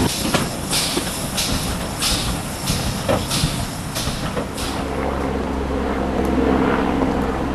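Exhaust of the GWR 2251-class 0-6-0 steam locomotive No. 3205 chuffing as it works, in sharp regular beats about three every two seconds. The beats stop about five seconds in, leaving a steady low hum.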